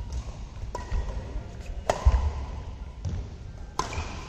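Badminton rackets striking a shuttlecock in a doubles rally: three sharp hits, about a second in, near the middle and near the end, with dull thuds of footwork on the court.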